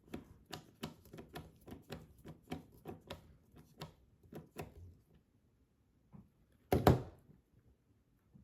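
Light clicks of small metal parts about twice a second for the first five seconds while a red dot optic is fitted to a pistol slide with recoil lugs, then a sharp double knock about seven seconds in.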